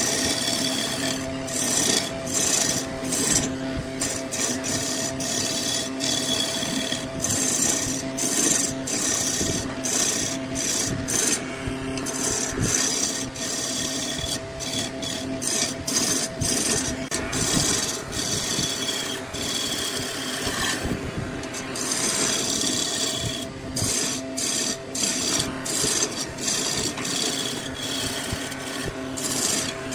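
Wood lathe motor running with a steady hum while a hand-held turning tool cuts the spinning laminated wood cylinder: a rough scraping hiss that comes and goes as the tool is pushed in and eased off.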